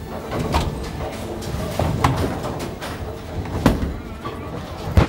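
Bowling alley noise: low rumbling of balls on the lanes with several sharp knocks, the loudest near the end.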